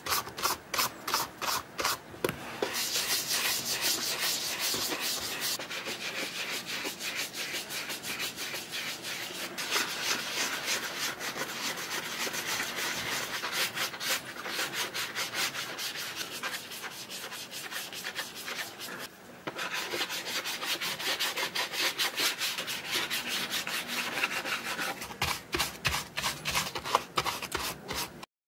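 Small wooden-handled dauber brush scrubbing cordovan cream into a cordovan leather shoe, a rapid bristly rubbing in quick back-and-forth strokes, with a brief pause about two-thirds of the way through.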